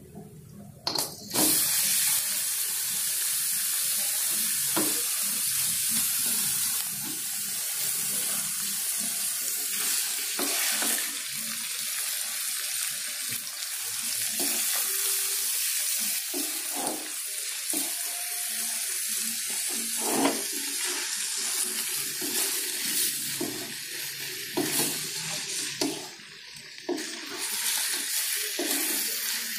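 Rabbit meat pieces dropped into a wok of hot oil and chopped chilies, setting off a loud sizzle about a second in that keeps going as a wooden spatula stirs the meat and knocks against the pan.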